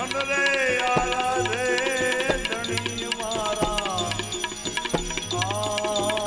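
Bhajan music: tabla strokes under a melody line that slides up and down in pitch, with short percussive strikes throughout.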